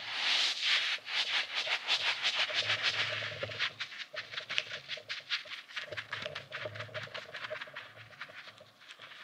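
Soft stretchy Daiso squeeze toy being squeezed and stretched in the hands, giving a quick run of small sticky crackling clicks that thin out and grow fainter after about four seconds.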